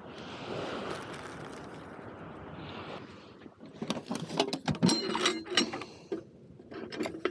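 Steady wind and surf noise, then from about three and a half seconds in a quick run of sharp clicks and clatters that lasts a few seconds.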